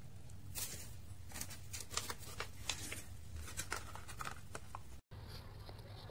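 Paper lid of an instant cup ramen being handled and torn, crinkling in a quick run of sharp crackles that stops at a cut about five seconds in.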